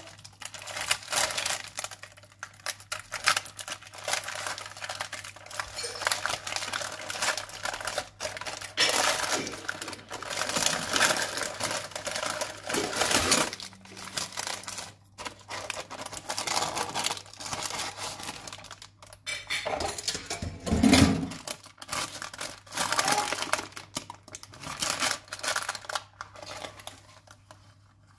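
A metal springform cake pan being opened and lifted off a sponge cake: parchment paper rustling and crinkling, with light clicks and clatter of the pan against a wire cooling rack. A single dull thump comes about three-quarters of the way through.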